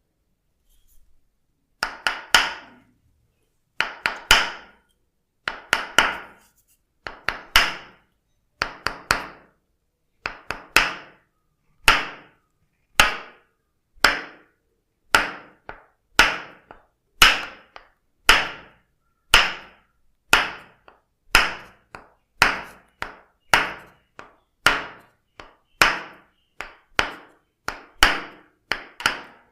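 Tok Sen massage: a wooden mallet tapping a wooden wedge pressed against the body, making sharp wooden knocks that each ring briefly. They start after a second or two, come in twos and threes at first, then settle into a steady beat of about one a second.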